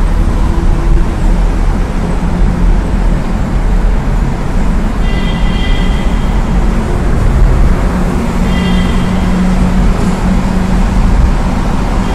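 Loud, steady traffic noise inside a road tunnel, heard from within a car's cabin: road and engine rumble. A brief high-pitched tone sounds about five seconds in and again at about eight and a half seconds.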